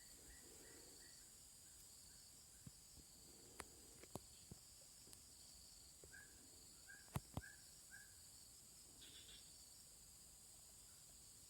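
Faint outdoor ambience: a steady high drone of insects, with a bird giving short runs of quick repeated notes. A few sharp clicks come through, the loudest two about seven seconds in.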